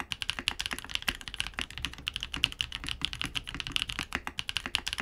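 Fast typing on a Vanguard 65 mechanical keyboard with an aluminium plate and case foam: a quick, continuous run of crisp keystroke clacks, with the deep resonance of the bottom case damped out.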